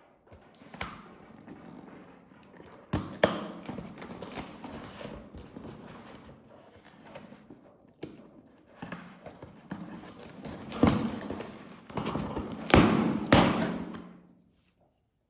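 Unboxing handling noise: items and packaging being handled, with rustling and several sharp knocks and taps, loudest about three seconds in and again near the end, stopping abruptly shortly before the end.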